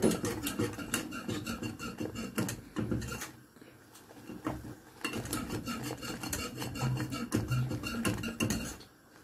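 Metal wire whisk beating and scraping inside a non-stick saucepan, a fast run of clicks and rasps, stirring a thickening milk-and-cornstarch cream. The whisking drops off for a moment about three seconds in and picks up again around five seconds.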